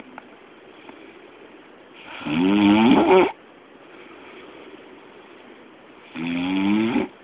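A man snoring very loudly: two long snores about four seconds apart, each lasting about a second and rising in pitch.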